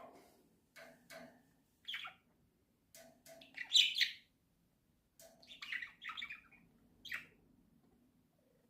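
Pet budgerigars chirping in short, irregular bursts, the loudest calls about four seconds in.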